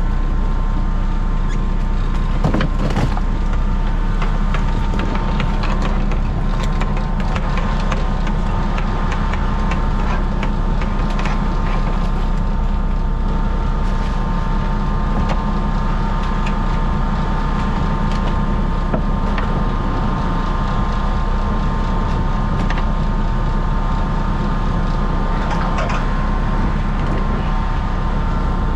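Crab boat's engine running steadily, a constant low drone with a steady whine over it, and scattered knocks and rattles as a crab trap is handled on deck.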